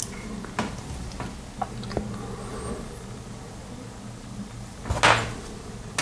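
Small clicks and taps from handling a plastic RJ45 Ethernet coupler and tools during a teardown, with a louder brief scrape about five seconds in, over a low steady hum.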